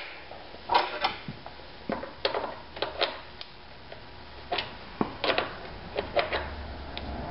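Hand tools and small metal engine parts clicking and clinking during the teardown of a small four-stroke tiller engine: about a dozen short, irregular knocks.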